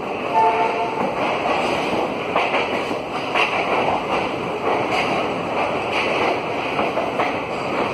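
Indian Railways passenger train running slowly along a station platform, heard from inside the coach: a steady rumble with faint irregular clicks from the wheels on the rails.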